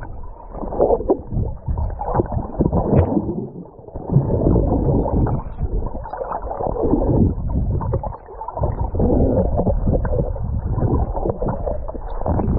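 Sea water moving and splashing around a swimmer's GoPro, heard muffled, in uneven surges that swell and fall every second or two.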